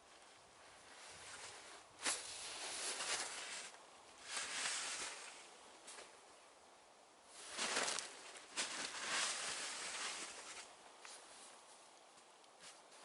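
Snow shovel digging into deep snow: a sharp knock about two seconds in, then a run of crunching, scraping strokes with short pauses between them.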